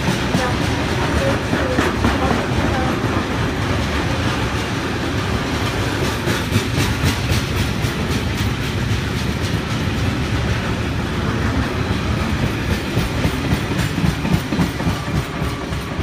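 A train of freight wagons rolling past, its wheels clattering steadily over the rail joints, the sound easing slightly near the end.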